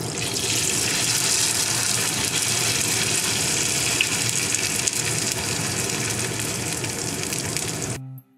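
Kakiage batter of carrot, onion and cherry blossoms frying in hot oil in a frying pan: a steady sizzling hiss that cuts off abruptly near the end.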